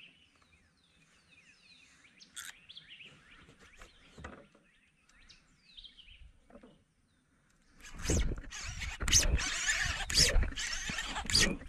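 Faint bird chirps, then from about eight seconds in a loud run of rustling and clattering handling noise as a fishing rod is swept back to set the hook and the reel is worked against a hooked alligator gar.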